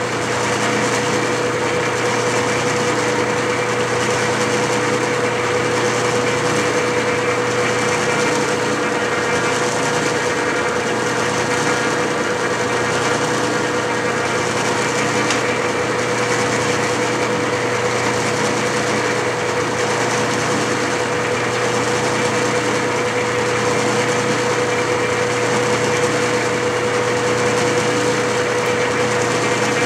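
Clausing metal lathe running steadily with a constant hum while a single-point tool takes a threading pass on an Acme thread.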